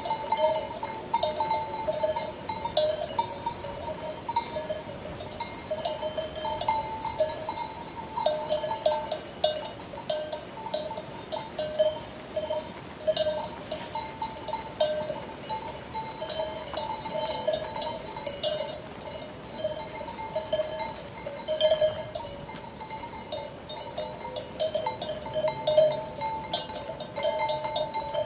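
Sheep bells clanking continuously and irregularly, several bells jangling at once, with a ringing at two steady pitches under many small metallic clinks.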